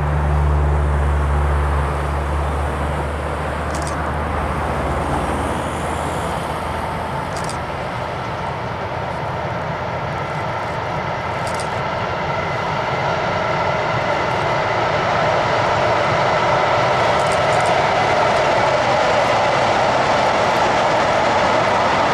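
Freight train of open wagons behind a locomotive passing, a steady rumble and rush of wheels on rails that grows louder over the second half.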